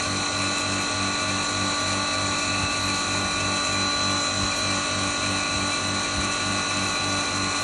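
Electric double-chamber maize grinding mill running steadily, with a high steady whine over a low hum that throbs at a regular rate.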